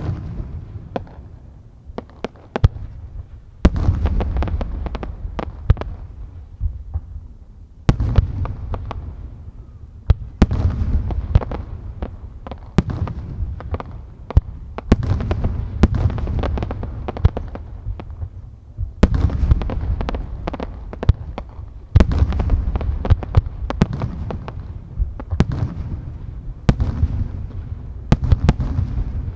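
Aerial firework shells bursting one after another, a sharp boom every three to four seconds, each trailing off in a long low rumble, with many smaller pops and crackles in between.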